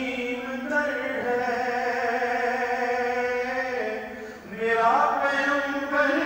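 A man's voice chanting in long, held notes, with a short break about four seconds in before the next note.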